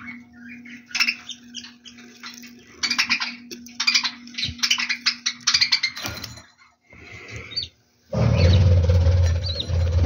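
Budgerigars chattering in rapid chirping bursts over a steady low hum. About two seconds before the end, a loud rough rustling rumble takes over.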